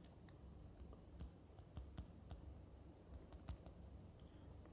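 Faint, irregular taps and clicks of a stylus on a tablet screen during handwriting, against near silence.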